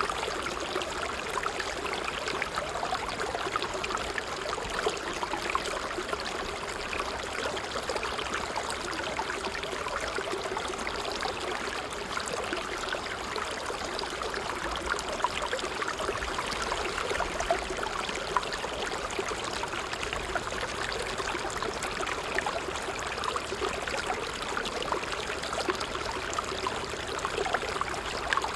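Water trickling steadily, a medium flow of many small splashes and gurgles without let-up.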